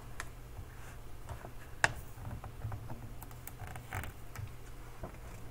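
Faint clicks and light handling noises from a hardcover picture book being held and handled, with one sharper click about two seconds in, over a low steady hum.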